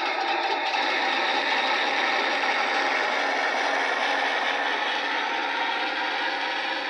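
1/16-scale model sIG 33 running steadily, a continuous rattling mechanical whir with no gunshot.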